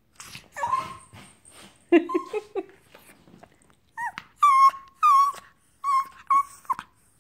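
A Japanese Chin dog's excited, chattering vocalizing: grumbling whines at first, then a quick run of about five high, wavering whines in the last three seconds.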